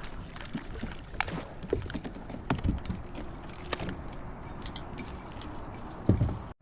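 Light metallic clinking and jingling of a spinnerbait's blades and hooks as a just-caught river bass is handled and unhooked, with scattered small ticks and a louder low thump about six seconds in.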